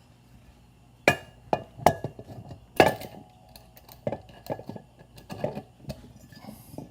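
Metal parts clinking and knocking as a Trans-Torq locking bushing is worked onto a centrifuge rotor shaft. There are several sharp clinks, some with a short metallic ring, and the loudest come about a second and about three seconds in.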